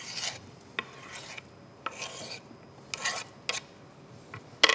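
Knife blade scraping sliced mushrooms off a wooden cutting board into a steel pot, in about five short rasping strokes, with a sharp knock near the end.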